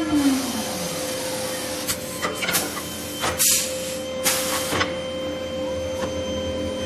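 CNC wood lathe running with a steady whine, a lower tone falling in pitch over the first second, and several short hissing bursts around the middle as the cutter works the wood.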